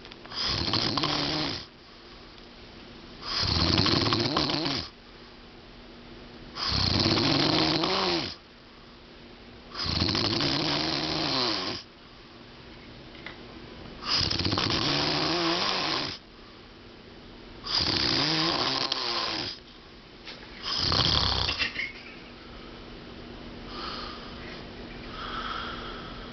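A sleeping man snoring loudly: seven long snores, one roughly every three and a half seconds, each lasting one to two seconds, then softer breaths in the last few seconds.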